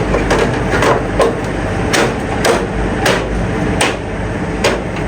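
About nine sharp knocks and clicks, irregularly spaced, as an air conditioner's outer body panel is tapped and fitted back into place, over a steady low hum.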